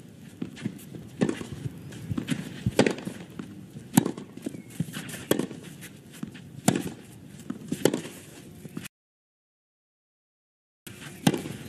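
Tennis rally on a clay court: the ball struck back and forth by racquets, a sharp pop about every second and a quarter over a faint steady court and crowd background. The sound drops out for about two seconds near the end, then the hitting goes on.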